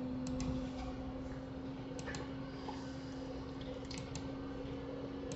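Computer mouse clicked three times, about two seconds apart, each click a quick pair of ticks, over a steady low hum.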